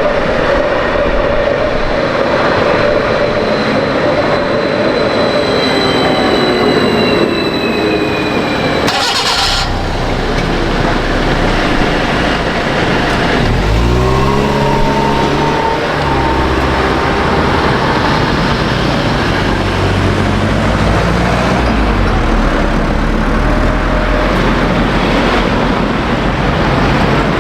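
A train running under heavy wind noise, with steady whines and a slowly falling tone; about nine seconds in the sound breaks off sharply, and from about thirteen seconds an engine or traction motor rises in pitch as the train pulls away.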